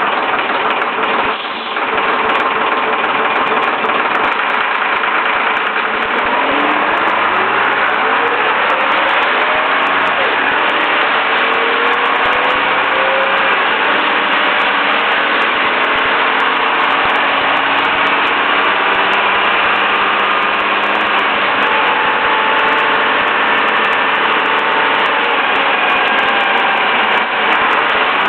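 Leyland National bus's replacement diesel engine running steadily on a road test. Its pitch rises several times between about 6 and 13 seconds in as the bus accelerates, with a short dip in level about a second and a half in.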